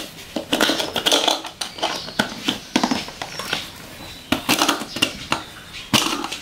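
Irregular plastic clicks and knocks as a screw-on blade lid is twisted and pressed onto a plastic grinder jar packed with mango chunks. The lid is not seating on the jar.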